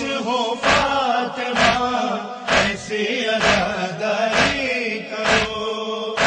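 Shia nauha (Urdu lament for Muharram): a male voice chants a long held line without clear words over a heavy, steady beat that falls just under once a second.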